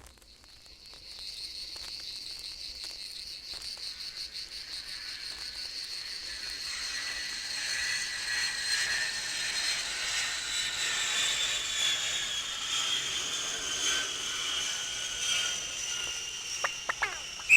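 Record intro effect: a high, rapidly pulsing insect-like chirring that fades in and slowly falls in pitch, with faint vinyl surface crackle beneath.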